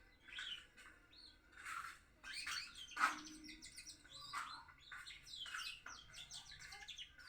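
Young two-month-old canary practising its song: quiet, broken-up chirps and short trills in separate bursts, the unformed subsong of a bird still learning to sing.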